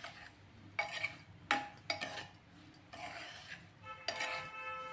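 A metal spoon stirring grated carrot and sugar in a metal pot, scraping along the bottom with a few sharp clinks against the pot's sides. Near the end a steady ringing tone sounds for about a second.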